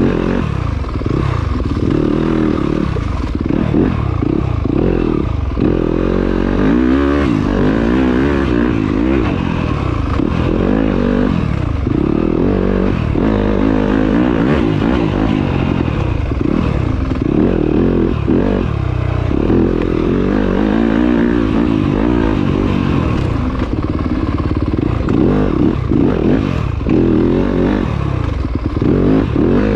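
Yamaha YZ250FX dirt bike's four-stroke single-cylinder engine at full riding effort on a trail loop, its pitch climbing and dropping over and over as the rider opens the throttle and backs off between corners.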